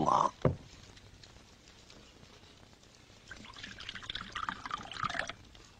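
Liquid poured from a white flask into a small cup, starting a little over three seconds in, running for about two seconds and stopping abruptly.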